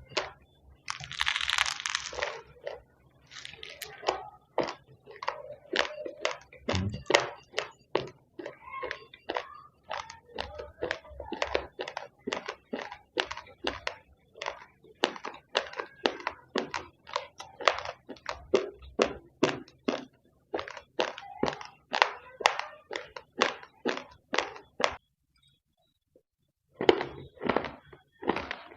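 Raw, uncooked rice grains being chewed close to the microphone: a fast run of sharp cracking crunches, about two or three a second, stopping for a couple of seconds near the end and then starting again.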